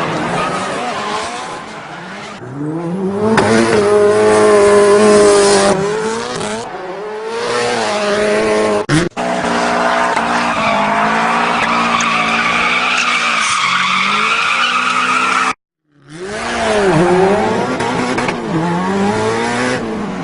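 Rally car sound effects: an engine revving up and down in pitch with tyre skid noise, in spliced clips. The sound cuts out briefly twice, about halfway through and again near the end.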